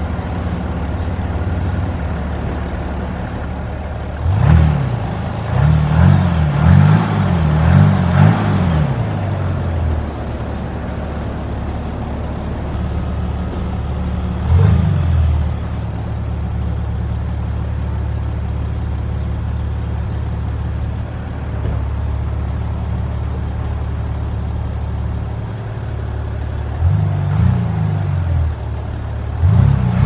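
2024 BMW X5 facelift xDrive30d's 3.0-litre straight-six turbodiesel idling at the exhaust, with short throttle blips: one about four seconds in, a quick run of several between about six and ten seconds, one near fifteen seconds, and more near the end.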